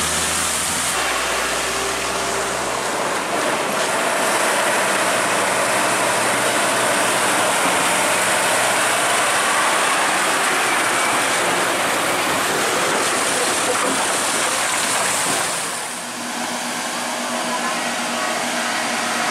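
Heavy diesel trucks moving slowly, engines running under a steady rushing road noise; the sound shifts abruptly about sixteen seconds in.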